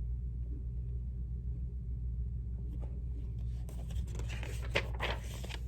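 Soft paper rustling, as a picture book page is turned, in the second half, over a steady low electrical hum.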